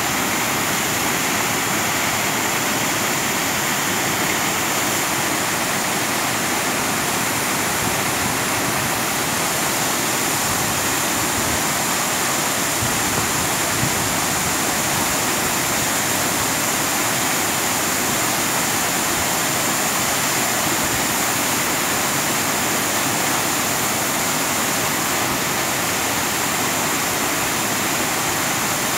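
Diyaluma Falls, a tall waterfall pouring down a rock cliff in heavy flow: a loud, steady rush of falling water.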